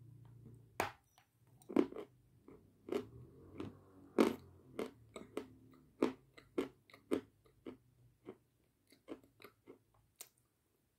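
A chunk of Kramatorsk natural chalk bitten and chewed: a first crisp crunch about a second in, then a run of crunches, one or two a second, that grow fainter and sparser toward the end.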